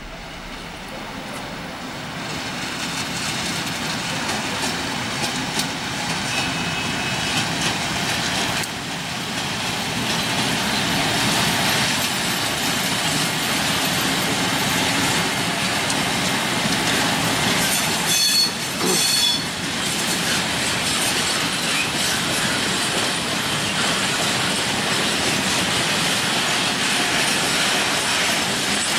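Freight train passing: a class 742 diesel locomotive running, then freight wagons rolling steadily along the rails. A little past the middle come two short, high-pitched metallic squeals, the loudest moments.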